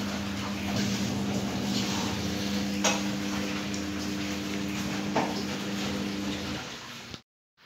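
Several cats eating from food bowls, with two sharp clinks against a bowl, over a steady low hum that stops near the end. The sound drops out completely just before the end.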